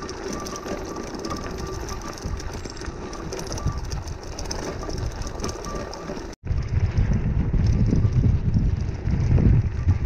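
Bicycle riding over a loose gravel track: tyres crunching on the stones and the bike rattling, with wind rumbling on the microphone. The sound drops out for an instant about six seconds in and comes back louder, with heavier low rumble.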